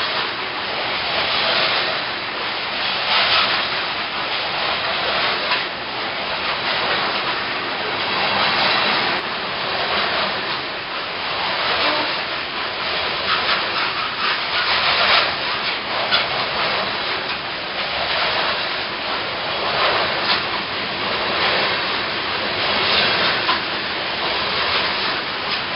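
Freight train of open-top steel-wheeled cars rolling past at close range: a steady rushing, grinding noise of wheels on rail that swells and fades every second or two as each wheel set goes by.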